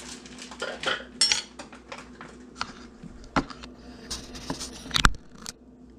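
Table knife scraping and clinking against a plate while spreading a topping onto a sandwich, with a louder knock about five seconds in.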